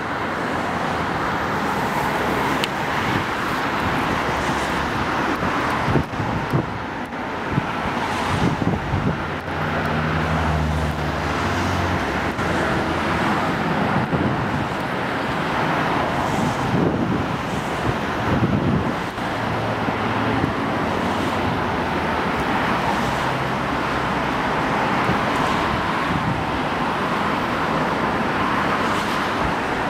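Steady road traffic passing on the bridge. An engine hum swells as a vehicle goes by about ten seconds in, and again a little later.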